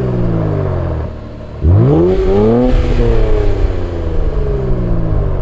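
Infiniti Q50's twin-turbo 3.0-litre V6 (VR30DDTT) heard through a cat-back exhaust with 10-inch sport mufflers. The revs settle back, then a sharp throttle blip comes about one and a half seconds in. It rises quickly and falls away slowly.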